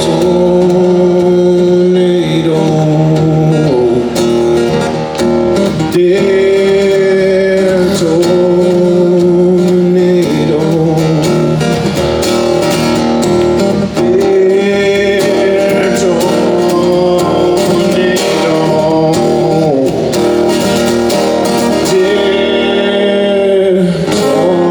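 Live acoustic music: acoustic guitar playing under long, held melody notes that bend here and there, with no sung words.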